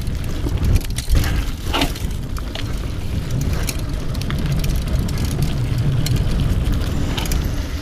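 Mountain bike riding over a forest trail: a steady low rumble of wind and tyre noise on the camera microphone, with scattered clicks and rattles from the bike.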